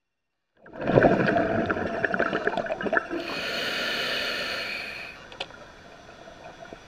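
Scuba diver's breathing through the regulator underwater. A rush of exhaled bubbles gurgles and crackles for about two seconds, then a steady hiss of an inhale lasts about two seconds, and it drops to a quieter background with a sharp tick or two.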